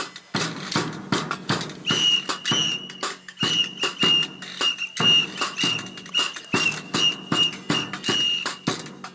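Drums and percussion played by a band, a quick, uneven run of beats and knocks, with a high whistle sounding in repeated held notes from about two seconds in.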